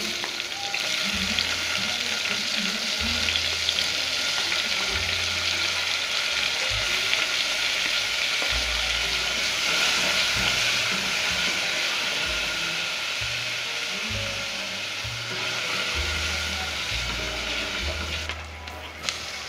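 Diced tomatoes sizzling as they fry with onions in a pan, stirred with a wooden spoon. The sizzle is steady and eases near the end.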